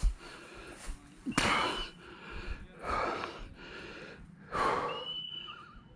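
A person breathing hard, out of breath from exertion: three heavy breaths about a second and a half apart.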